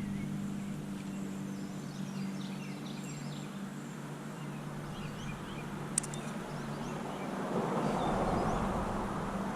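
Songbirds chirping and calling over a steady low hum, with one sharp click about six seconds in and a rush of noise building near the end.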